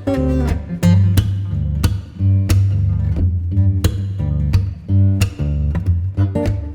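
Background music: guitar-led song with strummed guitar, a bass line and a steady beat.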